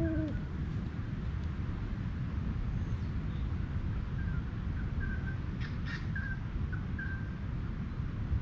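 Birds calling at daybreak: a low hoot right at the start, then a scattering of short high calls from about four seconds in, over a steady low rumble.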